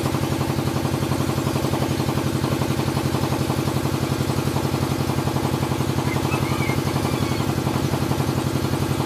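An engine idling steadily, with an even, rapid beat of about ten pulses a second.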